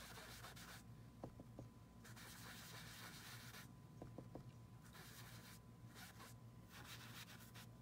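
Faint rubbing and dabbing of an ink applicator on cardstock, in several short spells with a few light taps between them.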